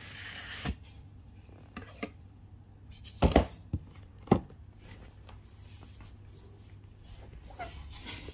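Perfume presentation boxes handled and set down on a tile floor. A short sliding rub is followed by a series of knocks, the loudest a double knock a little over three seconds in and another about a second later.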